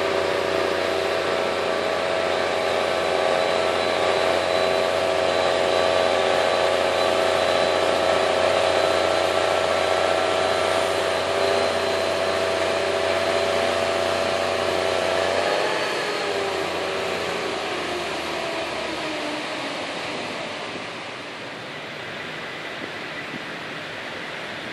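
Mobile crane's diesel engine running steadily with a droning hum while it hoists a steel beam. About sixteen seconds in, the engine note glides down in pitch as it throttles back, and it fades to a quieter steady hum.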